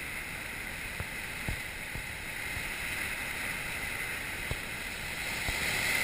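Ocean surf washing over shoreline rocks: a steady hiss of breaking water that grows a little louder near the end.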